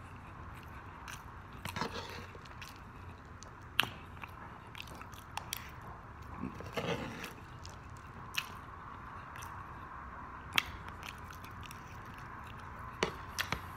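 Close-miked chewing of fried chicken and rice, with wet mouth sounds and irregular sharp crunches and clicks every second or few.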